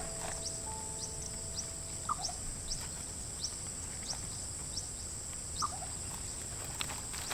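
Birds chirping: short, quick, high chirps about every half second, with a few lower calls, over a steady high-pitched drone. Sustained music notes fade out in the first two to three seconds.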